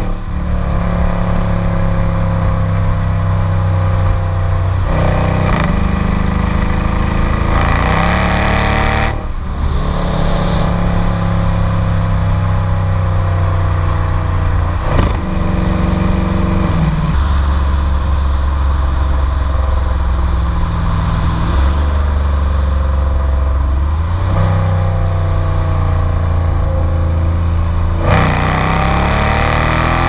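2017 Dodge Charger R/T's 5.7-litre Hemi V8 heard close at its stock factory exhaust while driving. The exhaust note is loud. It climbs, then drops back several times as the car pulls through the gears.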